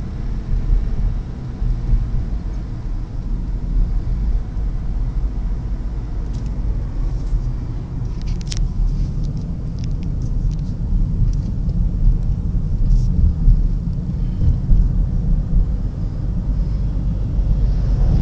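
Steady low rumble of a car driving, with a few faint clicks around the middle.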